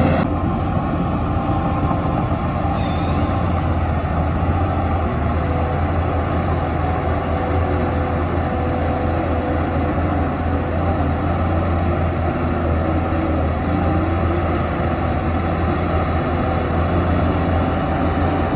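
Heavy diesel engine of earthmoving machinery running steadily under load, with a short hiss about three seconds in.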